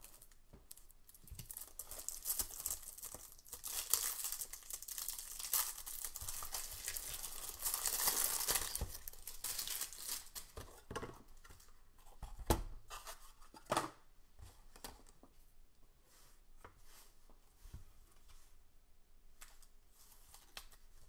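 Trading cards and clear plastic card sleeves handled by hand: crinkling, rustling plastic for several seconds, loudest toward the middle, then a few sharp taps and lighter rustles.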